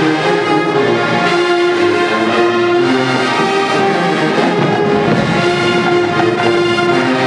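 Marching band brass section playing a slow passage of long held chords that shift every second or so.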